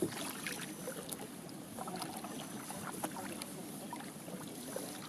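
Quiet water sounds around a paddled canoe on a calm river: small splashes, drips and lapping against the hull and paddle, heard as scattered soft ticks over a low hush.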